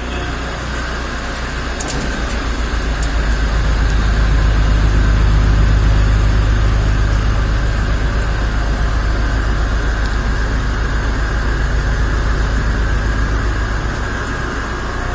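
CNC vertical machining centre running a drilling cycle on a valve body: a steady low machine hum with a steady high whine over it, growing louder from about two seconds in and easing off near the end. A few light clicks come about two to three seconds in.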